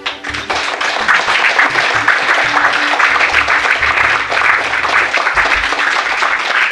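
Audience applause starting abruptly and carrying on loud and steady, over background music with a low pulsing bass.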